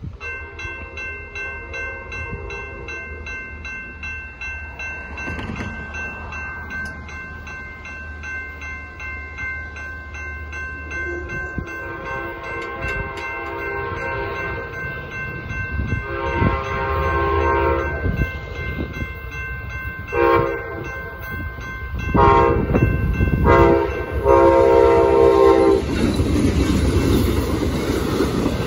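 Grade-crossing warning bell ringing steadily while an Amtrak passenger train approaches. From about twelve seconds in, the locomotive's horn sounds the crossing signal: two long blasts, a short one and a final long one. Near the end the train runs past over the crossing with a loud rush of wheels on rail.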